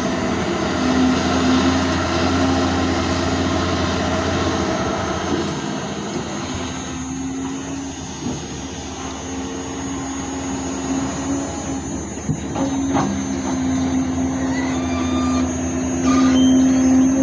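Excavator's diesel engine running steadily with a high steady whine over it. The engine grows louder and softer as it works, and a few sharp knocks come partway through.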